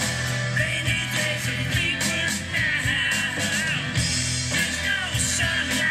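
Rock song playing: a guitar-led band over a strong bass and a steady drum beat.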